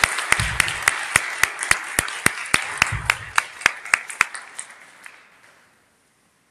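Audience applauding, with loud single claps close by standing out at about three a second; the applause fades away about five seconds in.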